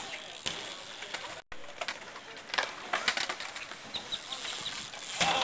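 BMX bike riding on skate park ramps: scattered knocks and clacks of tires and frame hitting the ramps and concrete, with a few short high chirps about four seconds in.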